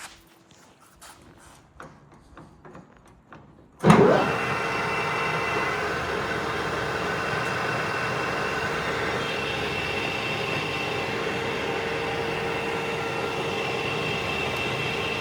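AYEL-TECH CD6241 x 1000 lathe switched on about four seconds in, after a few faint clicks: a sudden surge as it starts, then its motor and geared headstock running steadily with a constant whine.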